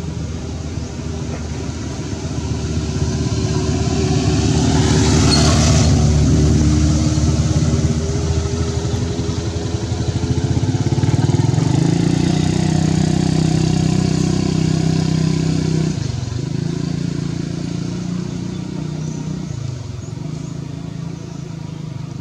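Motor vehicle engine running close by, a steady low hum that swells twice and drops off sharply about three-quarters of the way through.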